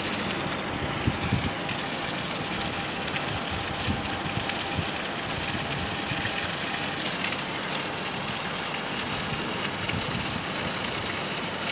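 Heavy rain pouring down steadily, a dense even hiss with scattered sharp drop impacts.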